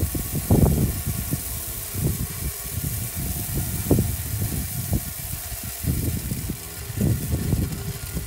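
Dual auger deer feeder running, its augers churning a mix of cottonseed, rice bran, corn and protein pellets out of the chute. It makes an uneven low rumble with a hiss of grain spilling onto the ground, easing off near the end.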